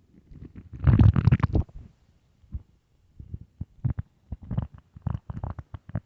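An empty stomach growling loudly: one long rumbling gurgle about a second in, then a string of short gurgles and pops.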